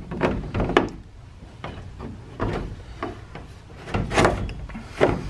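Irregular knocks and clunks of resin shed door parts being handled and fitted, with the loudest pair of knocks about four and five seconds in.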